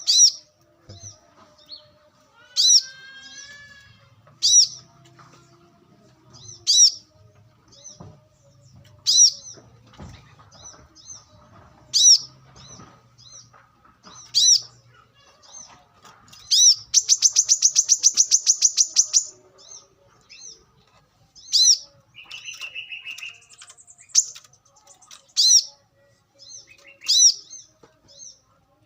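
Brown-throated sunbird calling: short, sharp, high notes repeated about every two seconds. About two-thirds of the way in there is a fast, even trill lasting about two seconds, and soon after it a short buzzy lower note.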